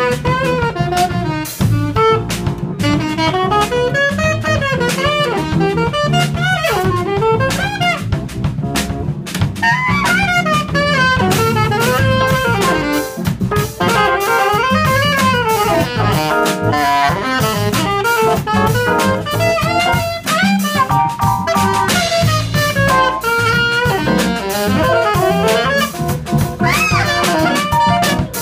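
Live jazz saxophone solo in quick, winding runs up and down, over a drum kit and low bass notes.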